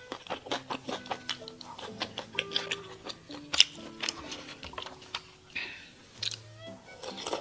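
Close-miked eating sounds: many short, sharp clicks of chewing and cutlery, irregular and several a second. Quiet background music with held notes runs underneath.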